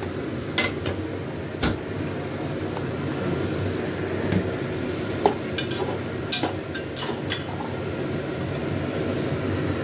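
Scattered clinks and knocks of metal kitchenware as a pressure cooker is opened and a steel spatula is handled, over a steady background hum.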